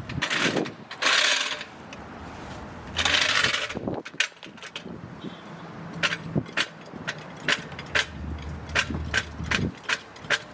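Metal scraping and a run of sharp clicks and clinks as a floor jack is set under the rear differential and worked.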